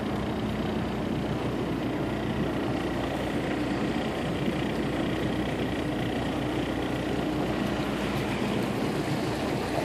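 Motorboat engine running steadily at slow cruising speed, a constant low hum with no change in revs.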